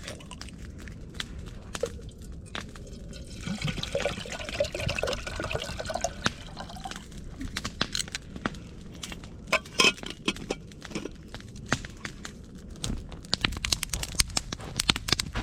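Liquid being poured for a few seconds, starting about three seconds in, over the sharp crackling and snapping of a wood campfire, which grows busier toward the end.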